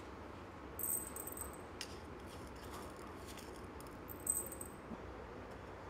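Grains of rice dropped into a small glass beaker, rattling and clinking against the glass in two short bursts, about a second in and again just past four seconds, with a few single ticks between.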